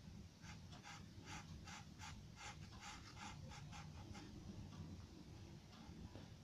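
Charcoal pencil scratching on paper in quick short strokes, about three a second, faint and fading after about four seconds. A low steady hum runs underneath.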